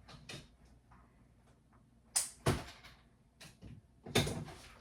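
Packaging being cut open and handled: a few short, sharp rustles and knocks, the loudest about two seconds in and near the end.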